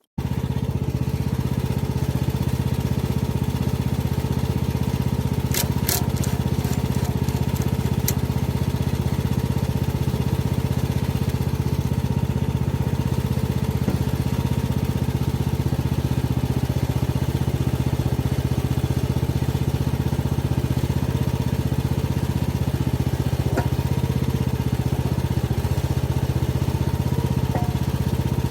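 Engine of an AGT MX12R 1-ton mini excavator running steadily, with a few sharp clicks about six to eight seconds in.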